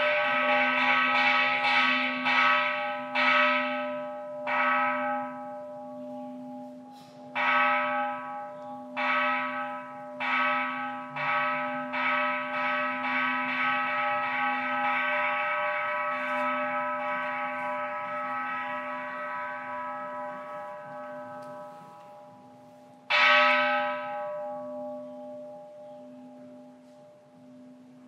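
Kanshō, a hanging Japanese Buddhist temple bell, struck repeatedly with a mallet: a run of strikes roughly a second or two apart in the first half, each ringing on with many overtones over a steady low hum, then a long fading ring and one hard strike near the end.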